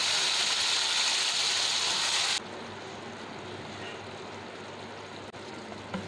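Chicken and Chinese potato pieces sizzling as they are stir-fried in oil in a pan. The loud hiss drops suddenly about two and a half seconds in to a quieter, steady sizzle.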